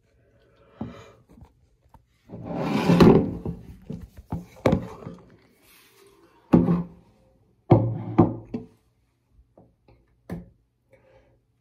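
Irregular knocks and thuds of objects being handled, with short bursts of rustling between quiet gaps.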